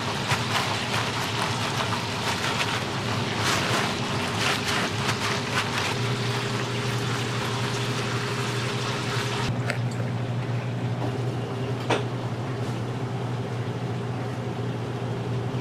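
Paper towel rustling and crinkling as gloved hands press it onto raw pork to blot it dry, over a steady low hum. The rustling dies away about two-thirds of the way through, and a single click follows a couple of seconds later.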